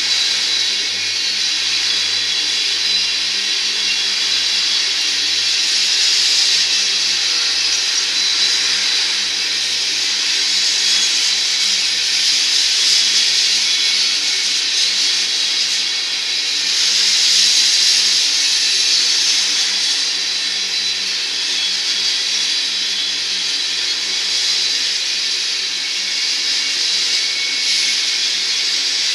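Crude oil tank cars of a freight train rolling past: a steady hiss of steel wheels on the rails with a low hum underneath, swelling a little now and then, with no distinct rail-joint clicks.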